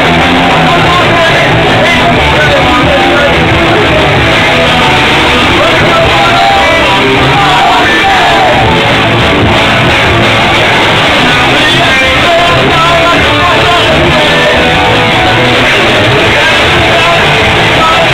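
Punk rock band playing live: loud, distorted electric guitar music, steady and unbroken throughout.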